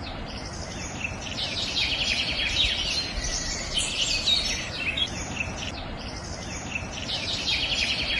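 Many small birds chirping and twittering in a busy, continuous chorus, over a steady rushing noise.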